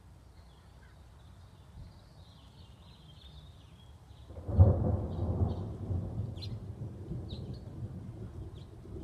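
Thunder breaks in about halfway through with a sudden loud clap, then rolls on as a long low rumble. Small birds chirp faintly before it.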